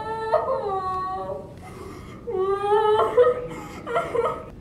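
A young woman wailing and sobbing in several long, high cries that slide down in pitch, with short breaks between them.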